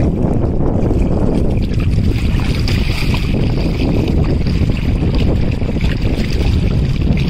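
Wind buffeting the microphone, a loud steady rumble, with small waves lapping against the rocks along a reservoir shore.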